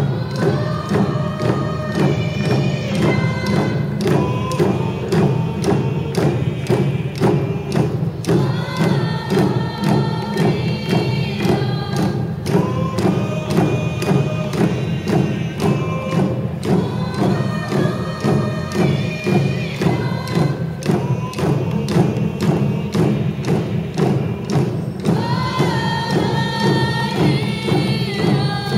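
A group of voices singing a Native American song together, accompanied by hand-held frame drums struck in a steady, even beat.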